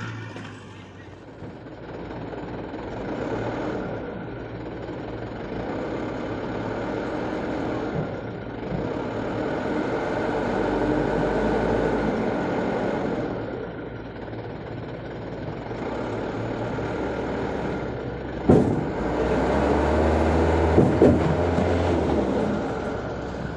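Diesel truck engine running under load, its level swelling and easing several times, with a couple of sharp knocks near the end.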